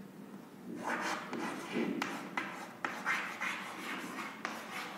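Chalk writing on a blackboard: a run of short scratchy strokes with a few sharp taps as the letters are formed.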